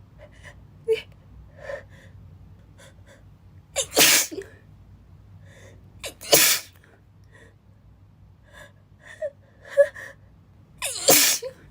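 A young woman sneezing three times, about four, six and a half, and eleven seconds in, with short, quieter breath sounds between the sneezes.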